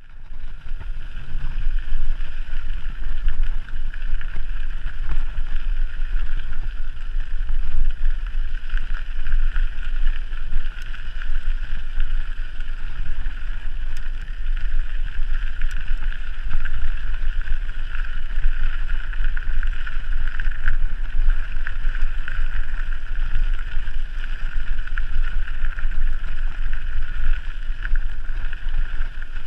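Wind buffeting the microphone during a mountain bike ride, a gusty low rumble with a steady hiss over it.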